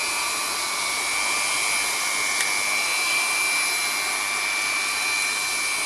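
Automatic hot-air banner welding machine running, its Leister hot-air gun blowing with a steady hiss and a constant high whine as it welds the banner material.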